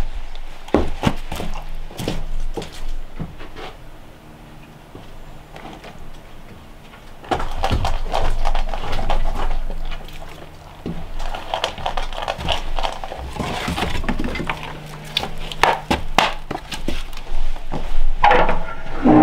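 A golden retriever eating dry food from a steel bowl on a wooden porch: crunching and the bowl knocking about, mixed with footsteps and knocks on wooden boards. A louder clatter comes near the end.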